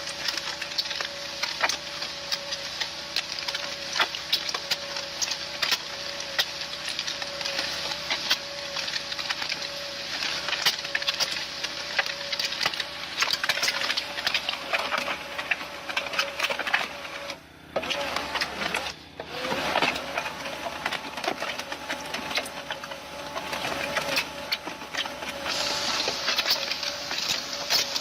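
Machinery running with a continuous clatter and hiss over a constant hum, cutting out briefly twice around the middle.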